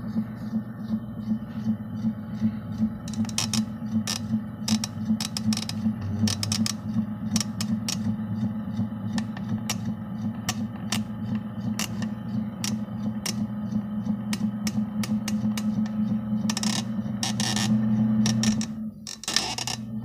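1981 Emerson friction-drive ceiling fan motor running with its blades off: a steady electrical hum, with irregular sharp clicks coming in from about three seconds in.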